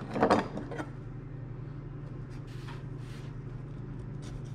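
Metal utensils clattering in a stainless kitchen sink as a knife is picked out, a few sharp knocks about a quarter second in, over a low steady hum. Near the end, light crisp crunches as the knife starts into a bell pepper on the counter.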